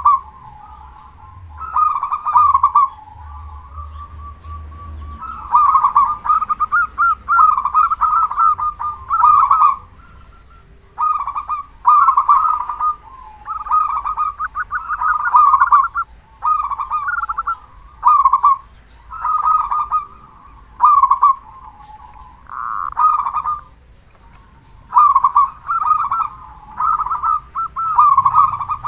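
A zebra dove (perkutut) cooing: a run of rolling, trilled coo phrases repeated every second or two with short pauses between them.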